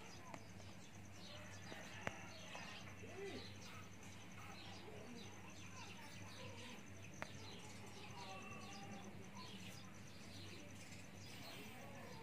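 Faint birds chirping in quick short calls in the background, over a steady low hum, with two light clicks, one about two seconds in and one about seven seconds in.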